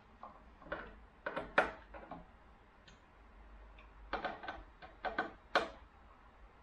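Small sharp clicks and taps of hard plastic parts and a PTFE tube being handled and fitted at a 3D printer's filament buffer. They come irregularly in short clusters, loudest about a second and a half in and near the end.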